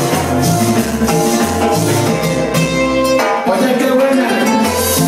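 Loud Latin dance music played over a sonido sound system, with a steady bass line. The bass drops out for a moment about three seconds in, then returns.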